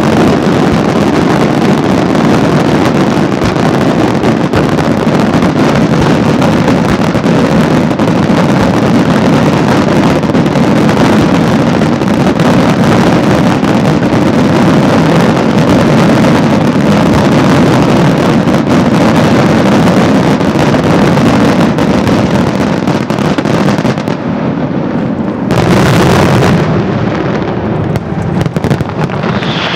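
Senatore Fireworks daytime display: a dense barrage of rapid bursts and crackling that merges into one continuous din. It eases briefly near the end, then comes one louder burst lasting about a second.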